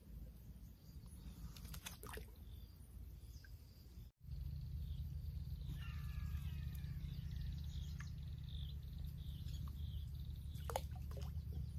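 Birds chirping and calling, with a few short falling call notes, over a steady low rumble. The sound drops out for an instant about four seconds in, and the rumble is louder after that.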